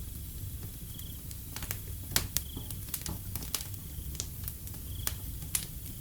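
Wood fire crackling: scattered sharp pops over a steady low rumble, the loudest two pops a little after two seconds in. A short high chirp repeats every second or two alongside.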